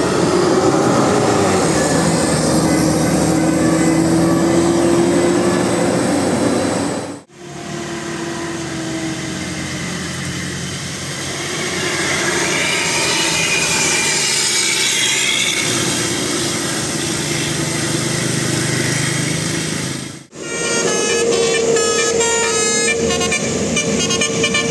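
Tour buses' multi-tone "telolet" musical air horns sounding over vehicle noise: long held horn notes in the first part, and near the end a quick tune of short stepped notes.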